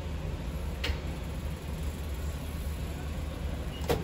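Steady low background rumble, with a faint click about a second in and another click near the end.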